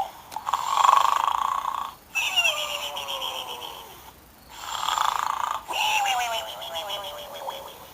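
A snoring pig toy's snore, played twice: each time a raspy snore breathed in, then a long whistle out that slides down in pitch.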